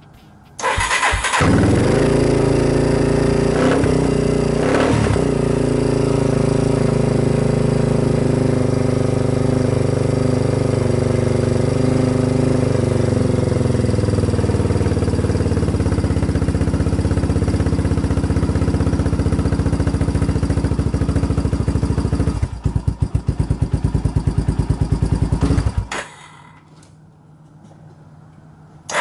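Yamaha Warrior 350 ATV's single-cylinder four-stroke engine, with a freshly rebuilt carburetor, starting without choke and settling into a steady idle. Partway through, the idle speed drops as the idle screw is backed out. Near the end the engine stumbles and dies: the idle is set too low.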